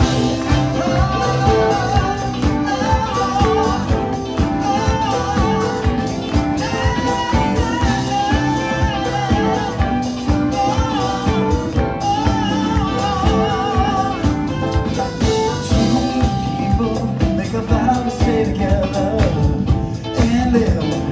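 A live rock band playing a song: voices singing over a drum kit, electric guitars and violin, with a steady beat throughout.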